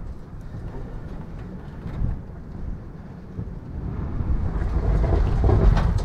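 Strong desert wind gusting against the microphone: a low, uneven rumble that builds to its loudest about four to six seconds in.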